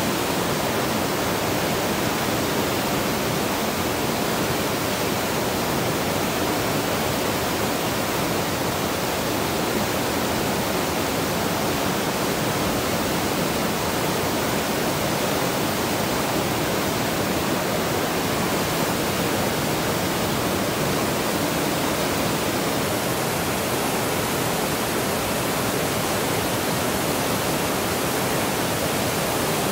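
Steady rush of river whitewater rapids churning over rocks.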